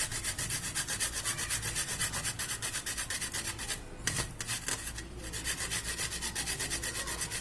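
Shallot being grated on a hand grater to a fine pulp: quick, even rasping strokes, pausing briefly twice near the middle.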